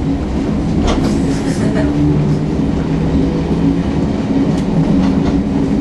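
London Underground A stock train running, with a steady electric motor hum and wheel noise, and a few clicks of the wheels over rail joints.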